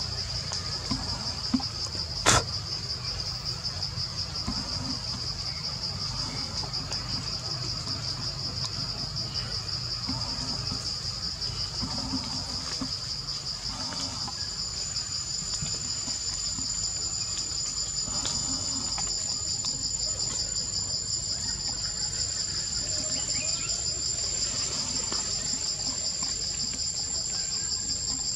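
Insects calling in a steady, high, fast-pulsing drone, with a second, higher-pitched insect joining in about halfway through. A single sharp click about two seconds in.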